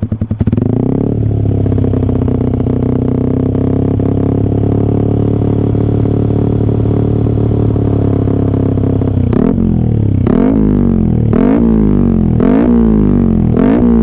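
Yamaha R15 V3's 155 cc single-cylinder engine through an aftermarket LeoVince GP Corsa exhaust, revved with the bike standing still. It is held at a steady raised rpm for about nine seconds, then blipped about five times, each rev climbing sharply and dropping back.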